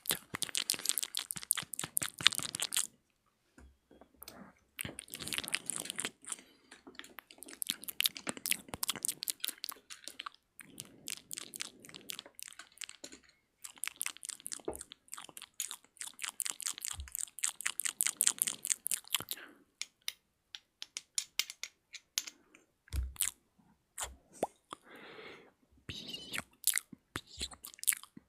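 Close-miked ASMR mouth sounds: rapid runs of clicks and smacks in bursts of a few seconds, with short pauses between them.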